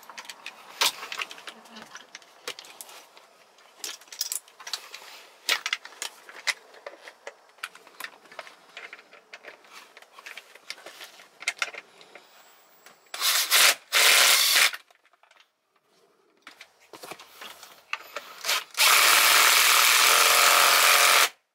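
Small metal clicks and rattles of parts being handled. About 13 seconds in, a cordless power tool gives two short loud bursts, then near the end it runs steadily for about two and a half seconds before stopping abruptly, tightening the seat-belt tensioner's mounting bolts.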